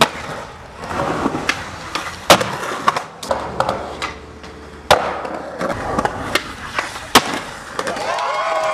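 Skateboard wheels rolling on concrete, broken by about seven sharp cracks and clacks as the board pops, lands and hits the ground during tricks.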